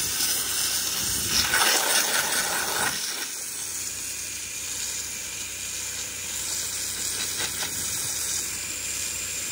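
Power-washing spray gun jetting water onto roof shingles and moss in a steady hiss, louder for a second or so about a second and a half in.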